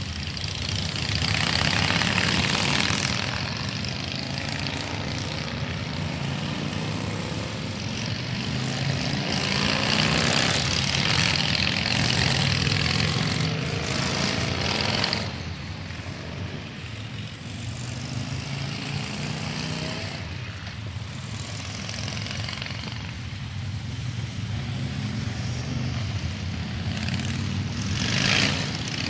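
Several motorcycle engines running as cruiser motorcycles pull away one after another. It gets louder as each bike accelerates past, around the start, in the middle and again near the end.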